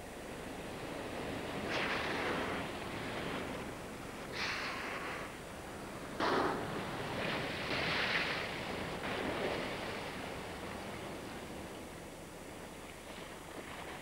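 A blue whale surfacing and blowing at sea: several separate rushing bursts of breath and spray over the steady wash of waves, the loudest near the middle.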